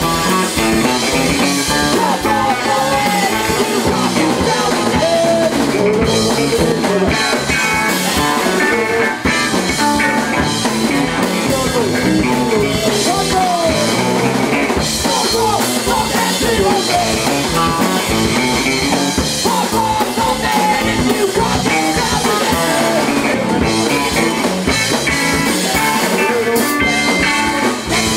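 Punk rock band playing live: drum kit and guitar, with a voice singing.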